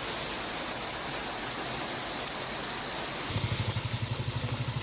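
Steady hiss of heavy rain falling. About three seconds in, a low, rapidly pulsing rumble joins it.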